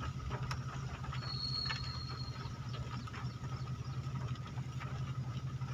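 Steady low hum of a running engine, with rapid even pulsing, under a faint high steady tone. A short thin high tone sounds about a second in.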